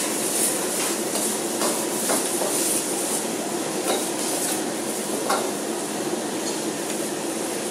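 A metal ladle and spatula scraping and clanking against a wok as noodles and vegetables are stir-fried, with sharp knocks every second or so over a steady hiss of frying.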